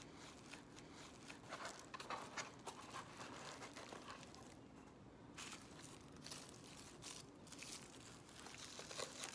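Faint, scattered crinkling and rustling of metallic foil strips woven into a lap loom, with light clicks, as hands adjust and straighten the cotton warp strings.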